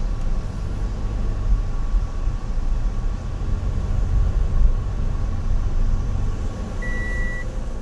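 Interior cabin noise of a Toyota HiAce van driving: a steady low road-and-engine rumble, with one short high beep near the end.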